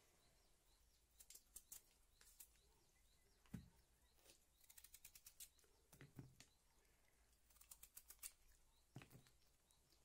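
Kitchen knife cutting raw peeled potatoes, faint clicks and ticks in small runs, with a few soft low knocks about a second and a half in, near the middle and near the end.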